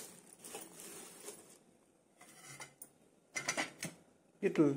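Scattered light clicks and rustles of kitchen handling, as hands move steel bowls and a plate of fresh coriander leaves. A voice starts just before the end.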